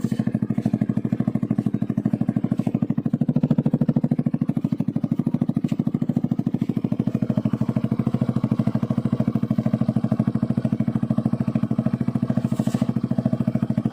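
Yamaha scooter engine running steadily at idle through a homemade SC Project-style silencer made of stainless tube, with a fast, even exhaust pulse.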